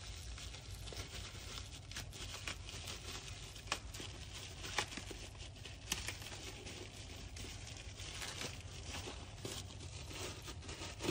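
Plastic bubble-wrap parts bag crinkling and rustling as it is handled and opened, with irregular sharp crackles.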